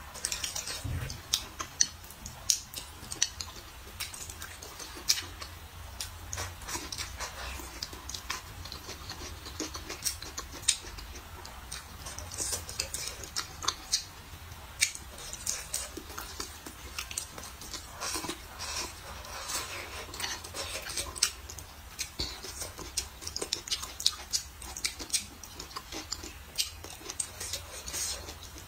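Mouth sounds of someone eating stir-fried green chillies and century eggs: irregular wet clicks and smacks of chewing, over and over.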